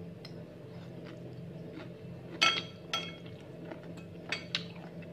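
Metal fork and spoon clinking against a ceramic bowl of stir-fried snails and green chili: several short ringing clinks, the loudest about two and a half seconds in, over a steady low hum.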